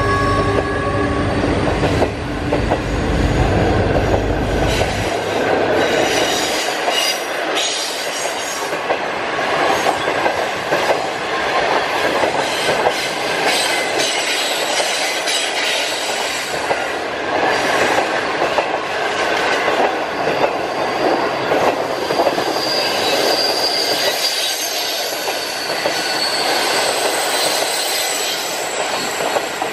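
Passenger coaches of a China Railway 25G train rolling past close by: steady wheel-on-rail noise with rhythmic clickety-clack over rail joints and a thin, high wheel squeal in the later part. In the first second or two, the end of a horn chord dies away, and a low rumble drops out about five seconds in.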